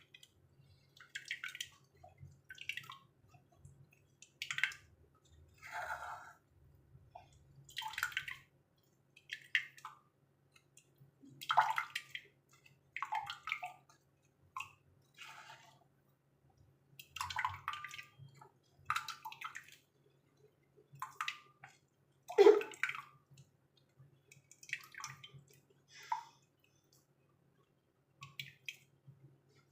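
Short, irregular bursts of splashing and dripping liquid every second or two as blended carrot-and-onion pulp is strained and its juice runs out, with one louder splash about two-thirds of the way through.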